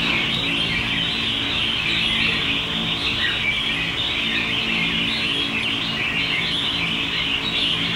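Caged red-whiskered bulbuls chirping and singing in a dense, continuous chatter of many overlapping calls at a steady level.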